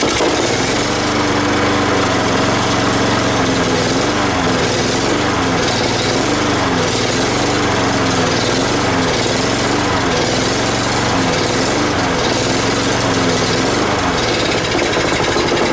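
Honda lawn mower's small engine running, its speed surging up and down about once a second. It is starved of fuel, with no petrol going in, and is kept going only by the "persuasion" fed to it.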